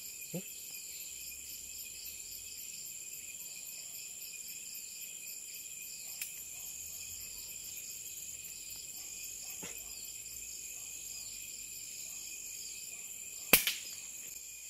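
Steady chorus of crickets and other night insects trilling in several high bands. About thirteen and a half seconds in comes one sharp crack of a gunshot, followed at once by a smaller knock.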